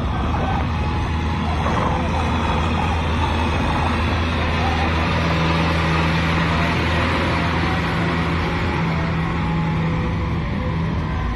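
Kubota M6040SU tractor's diesel engine running steadily under load, driving a rotary tiller through wet paddy mud. A low drone holds throughout, with a second steady tone joining from about halfway through.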